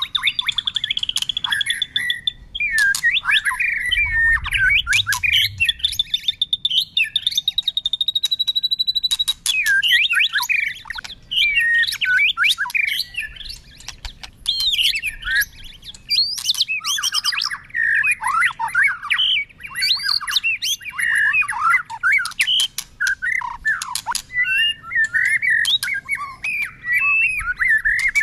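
White-rumped shama singing a continuous, ever-changing song. Short fast trills come first, then a long high trill from about three to nine seconds in, then rapid varied whistled phrases, with sharp clicking notes mixed in.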